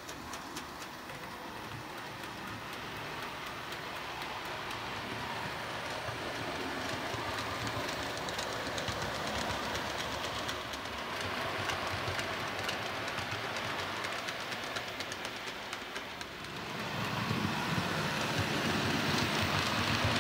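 OO gauge model train running on the track: a rake of Accurascale CEMFLO cement tank wagons rolling along with a steady rumble and rapid clicking of wheels over the rail. It gets louder about 17 seconds in as the train comes close.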